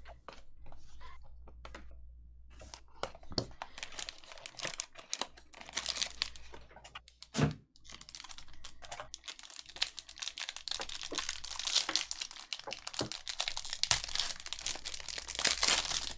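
Upper Deck hockey card pack wrappers crinkling and tearing as packs are opened by hand, an irregular run of crackles that gets busier near the end, with a single louder knock about halfway through.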